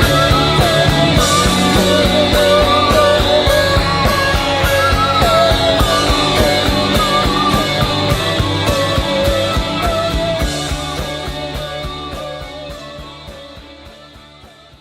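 Glam rock band playing an instrumental passage, with steady drum beats under guitar and held wavering lead notes. It fades out over the last few seconds as the song ends.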